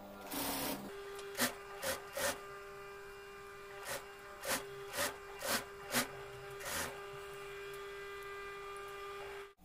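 Industrial lockstitch sewing machine stitching corduroy cap panels in short bursts: one half-second run just after the start, then about nine brief runs of a few stitches each, over a steady hum that cuts off suddenly near the end.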